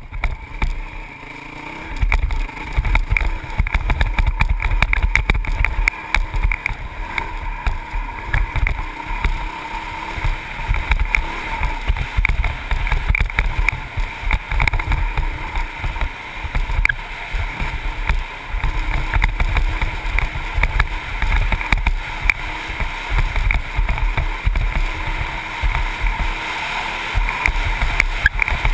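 Honda CRF450X dirt bike's single-cylinder four-stroke engine running under way, heard through heavy wind buffeting on the camera microphone. The wind rumble grows stronger about two seconds in and stays gusty.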